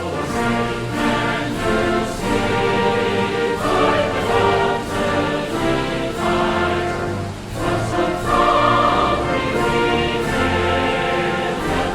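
Orchestral background music with a choir singing sustained chords.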